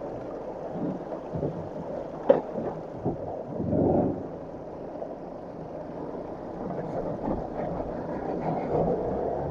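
Heavy rain pattering on a Land Rover Defender 110's bonnet-mounted camera, over a low rumble from the vehicle crawling across rough, wet ground. A sharp knock comes about two seconds in, and a louder scraping rumble follows around four seconds in, as the rear differential hangs up on the ground.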